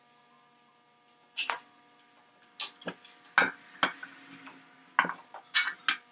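Irregular sharp metallic clinks and knocks, about nine of them starting about a second and a half in, from a metal carriage-lamp body and tools being handled and set down on a workbench.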